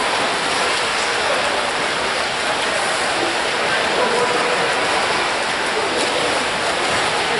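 Steady splashing and churning of pool water as water polo players swim and grapple.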